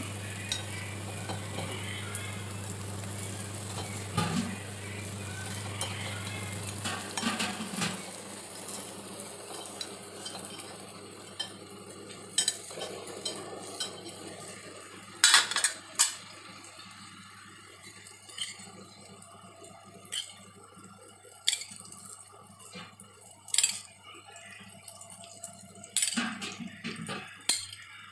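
Metal spoon and fork scraping and clinking against a paniyaram pan as frying paniyaram are turned, over oil sizzling in the pan's cavities. The sizzle is steady in the first half and fades later, while sharp clinks come every few seconds in the second half.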